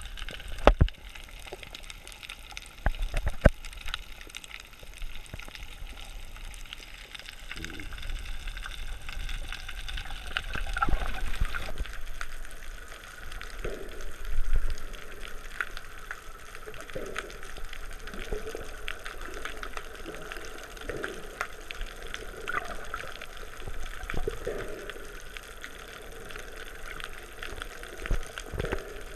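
Underwater sound picked up by a camera in its waterproof housing: a muffled wash of moving water with irregular gurgles every second or two. A few sharp knocks come in the first few seconds.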